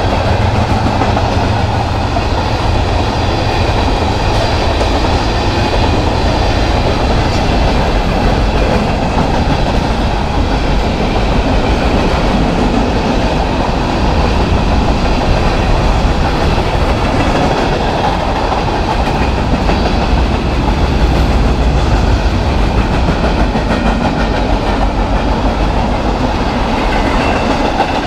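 A train rolling past at steady speed, its steel wheels clattering over the rail joints with a continuous low rumble.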